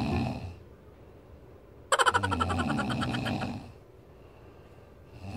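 A sleeping person snoring in a regular breathing cycle: one rattling snore of nearly two seconds in the middle, the tail of the previous one at the start and the next beginning near the end, with quiet breaths between.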